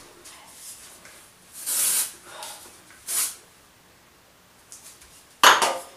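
Aerosol spray hissing in short bursts, about a second and a half in and again about three seconds in, then a louder, sharper burst near the end.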